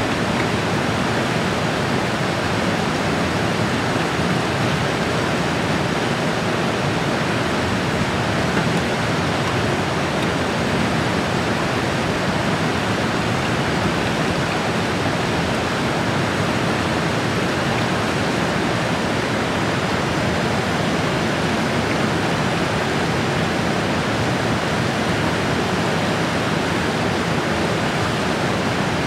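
Rocky mountain river rushing over boulders and rapids, a loud, steady roar of white water.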